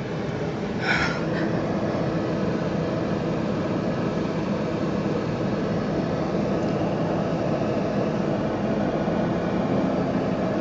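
Car engine running as the car moves off, heard from inside the cabin as a steady low noise, with a brief hiss about a second in.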